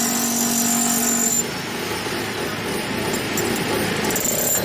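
A motor-driven tool or machine running steadily with a dense mechanical noise. A humming tone over it stops about a second and a half in.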